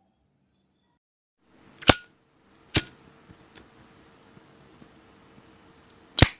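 Zippo lighter's metal lid clinking open with a ringing tone about two seconds in, followed by a second sharp click, then snapped shut with another clink near the end.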